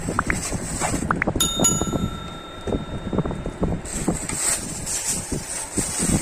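Handling noise: a cardboard box is opened and a polythene bag crinkles as a face shield is drawn out of it. A single bell chime starts suddenly about a second and a half in and rings steadily for about two and a half seconds.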